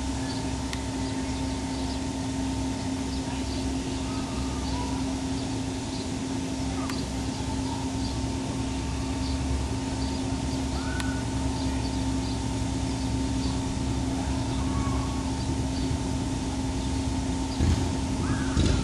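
Fire truck's engine and pump running steadily to drive a water stream, a constant drone with a steady hum.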